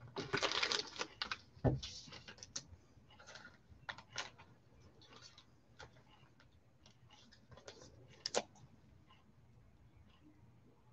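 Trading cards being handled in gloved hands: a burst of plastic rustling, a sharp knock just after, then scattered light clicks and rustles as a card is slid into a clear plastic holder.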